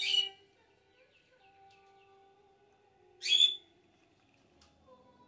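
A bird gives short, loud, high chirps, twice about three seconds apart.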